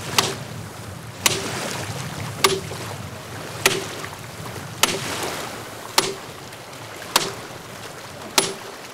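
Steady rush of flowing river water, with a sharp knock repeating evenly about every 1.2 seconds, eight times, each with a short ring after it.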